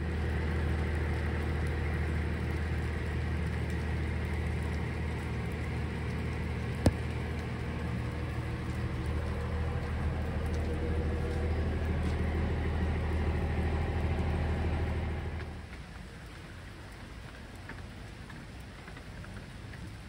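Rain falling, with a steady low hum over it and one sharp click about a third of the way in. The hum stops abruptly about three-quarters through, leaving a softer even patter of rain.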